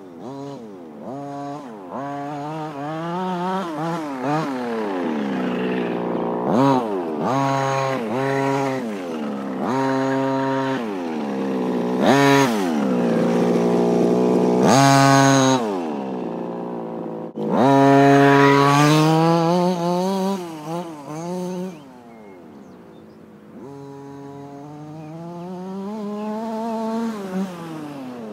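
Two-stroke petrol engine of a 1:5-scale Kingmotor T2000 4WD RC car with a dual-pipe exhaust, revving up and down over and over as the car is driven. The revs drop to a low, steady idle about two-thirds of the way through, then climb gradually again.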